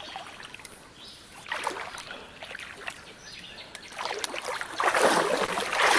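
Shallow creek water splashing and sloshing, in two spells: a short one about a second and a half in, and a longer, louder one building over the last two seconds.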